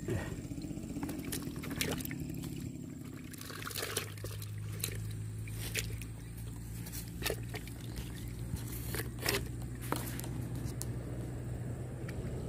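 Streamside ambience: faint trickling water with scattered light clicks over a steady low hum.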